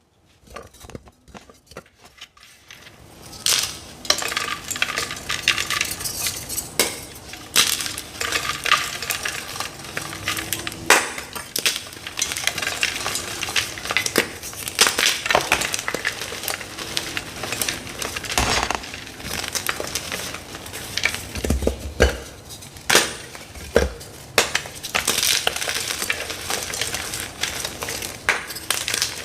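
Dyed gym chalk blocks being crushed and crumbled, a dense crackling crunch broken by many sharp snaps as the pieces give way; it starts faintly and turns full after about three and a half seconds.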